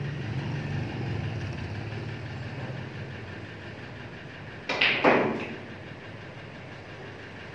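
Two sharp clicks of snooker balls about five seconds in, a cue tip striking the cue ball and then the cue ball hitting an object ball. Under the first few seconds there is a low rumble like a distant engine idling, which fades.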